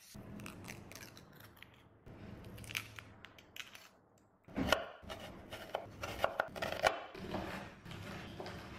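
Chef's knife cutting an onion on a wooden cutting board: crisp crunching slices, then a faster run of sharp chopping knocks on the board in the second half.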